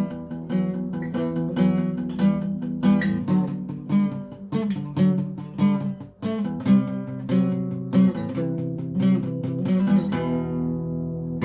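Acoustic guitar strumming chords in a steady rhythm. About ten seconds in, one chord is left to ring out and fade.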